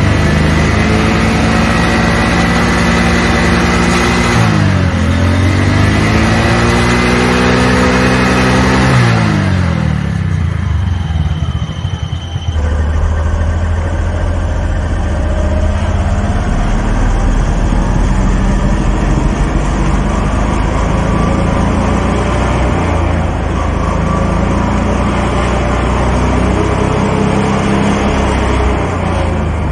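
Motorcycle engine running, its rear wheel spinning the pulley of a 220 V AC alternator under test. The revs fall, climb and fall again between about four and nine seconds in, then hold fairly steady with slight wavering.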